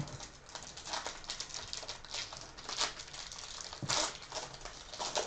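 Clear plastic wrapping on a hanger box of trading cards crinkling and tearing as fingers pick and peel it open, in an irregular run of crackles and snaps.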